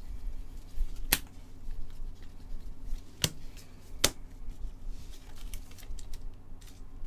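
Trading cards being handled by gloved hands: quiet rustling with three sharp clicks, about a second in, past three seconds and about four seconds in, as cards are snapped or set down.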